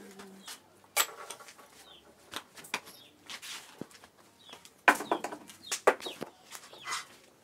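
Chickens clucking in short, scattered calls, the loudest two about five and six seconds in.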